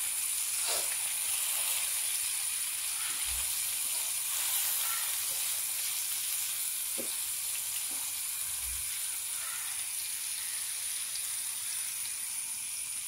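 Whole masala-coated fish shallow-frying in hot oil in a nonstick pan: a steady, high sizzle, with a few faint taps and light bumps as a spatula turns the fish.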